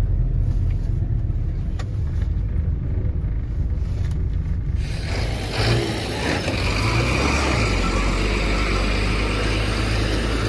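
Car running with a steady low engine and road rumble. About halfway through, a loud steady hiss comes in over it.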